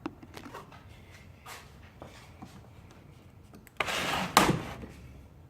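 Handling noises as a boxed socket set is opened: a few small clicks and taps, then a louder rough scraping clatter about four seconds in that ends in a sharp knock.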